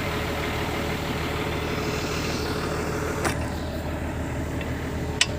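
Hitachi 210 excavator's diesel engine idling steadily, with a sharp metallic click from the track work near the end and a lighter one a little past the middle.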